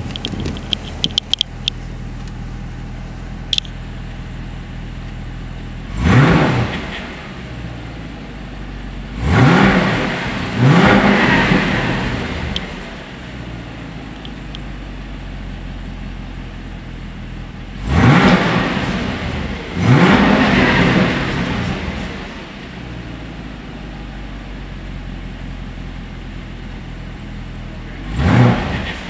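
Supercharged 6.2-litre LT4 V8 of a 2023 Camaro ZL1 idling in park and revved in six quick blips, some in pairs, each rising sharply and falling back to idle. A few light clicks in the first few seconds.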